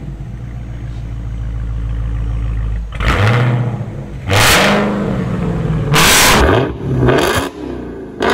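Supercharged 6.2-litre HEMI V8 of a 2020 Dodge Charger Hellcat with its middle mufflers deleted, idling steadily and loud, then revved several times from about three seconds in, each rev rising and falling in pitch, the middle two the loudest.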